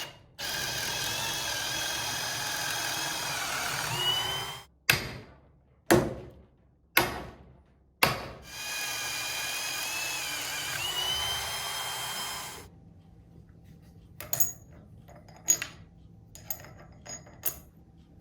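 A power drill runs twice for about four seconds each time, its pitch rising near the end of each run. Between the runs come four sharp, ringing metal strikes about a second apart. Lighter scattered clicks follow near the end.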